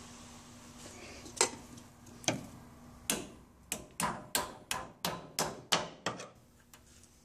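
Sharp metal clicks from a wrench tightening a brake line fitting on the caliper. There are two single clicks, then a quick run of about ten, roughly three a second.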